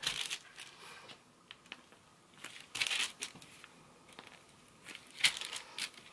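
Crinkling rustles from a piping bag being squeezed and baking parchment being handled on a tray while meringue is piped. The rustles come in three short bursts, near the start, about three seconds in and about five seconds in.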